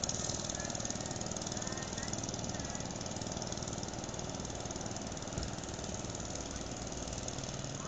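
Mini-bike's small engine running steadily as it is ridden, with one brief thump about five seconds in.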